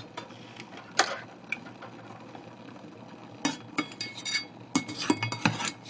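Metal clinking and scraping of a mesh strainer knocking against a stainless steel pot as it is worked at the pot's mouth, where it will not fit. There are a couple of single clinks early, then a quick run of clinks in the second half.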